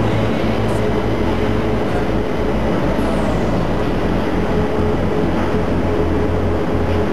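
Bucharest metro train pulling out of the station and running off into the tunnel: a steady low rumble from the motors and wheels with a faint steady whine.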